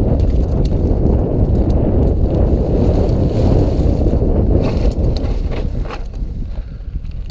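Wind rushing over an action camera's microphone as a mountain bike rolls fast down a bumpy grassy trail, with scattered clicks and rattles from the bike. A brief thin high squeal comes about five seconds in, and the rush eases near the end as the bike slows onto the smooth dirt road.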